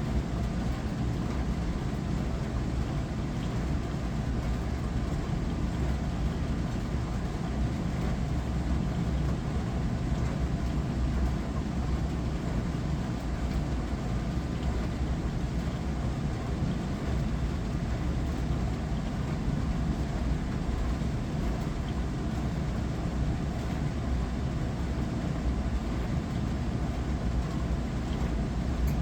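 Hava glass-front dishwasher running its wash cycle: a steady low motor hum under the even hiss of water spraying inside the tub.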